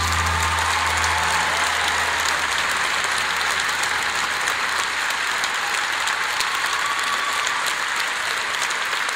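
Concert audience applauding steadily, while a low held note from the band dies away over the first couple of seconds.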